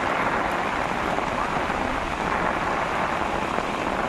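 Rain falling steadily on floodwater, an even hiss with no breaks.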